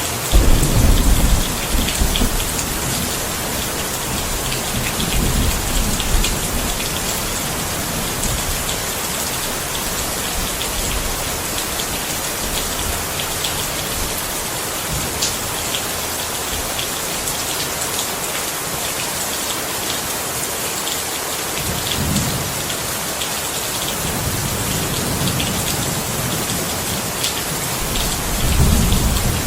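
Steady heavy rain falling, with a dense hiss and pattering drops, and low rolls of thunder rumbling up at the start, a few seconds in, past the middle and near the end.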